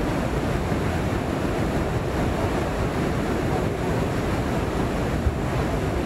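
Niagara Falls, iced over but with its water still pouring down, making a steady, loud rushing noise that is heaviest in the low end.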